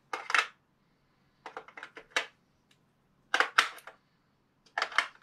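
Sharp little plastic clicks and clacks in four short clusters about a second apart: batteries being pressed into the battery compartment of an RC car's transmitter.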